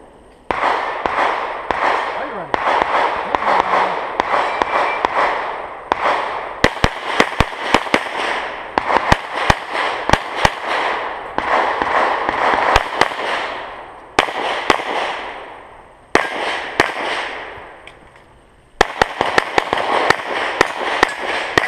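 Glock 34 9mm pistol fired in rapid strings of shots on a USPSA stage, with short breaks between strings, each group trailing off in echo.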